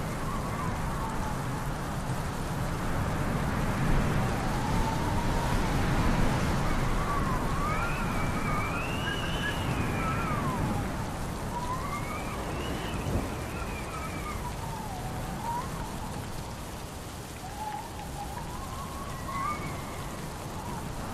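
Steady rain with gusting wind, swelling louder a few seconds in; a thin whistling tone wavers up and down in pitch over it several times.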